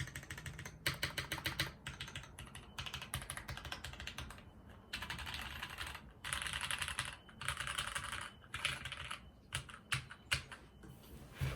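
Rama M60-A 60% mechanical keyboard being typed on, with lubed Cherry-topped Ink linear switches in an integrated aluminium plate and GMK keycaps. It clacks in quick bursts of keystrokes with short pauses between them, some runs so fast the strokes blur together.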